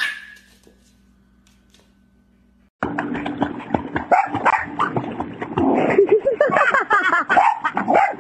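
Dogs barking and yelping excitedly in a swimming pool over splashing water, starting suddenly about three seconds in after a near-quiet stretch that opens with one brief sharp sound.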